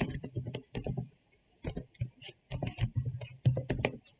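Computer keyboard being typed on: quick, irregular runs of key clicks broken by short pauses.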